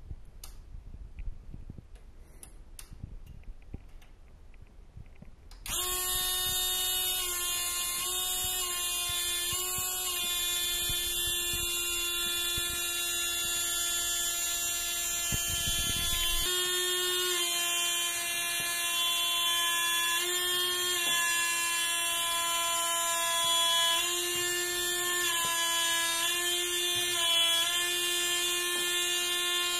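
Small 18-volt water pump cooling a homemade CO2 laser rifle's laser tube, running with a steady buzzing hum that starts about six seconds in, its pitch shifting slightly now and then. Before it starts there are only faint knocks and rumble.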